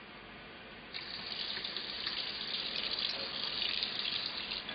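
Water running steadily from an Oras Safira kitchen faucet, turned on about a second in, to test the newly replaced spout for leaks at the joints.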